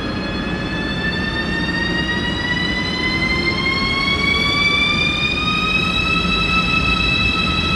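Railjet train pulling out, its electric traction drive whining in a steady tone that rises slowly in pitch as it accelerates and levels off about six seconds in, over a low rumble of the wheels.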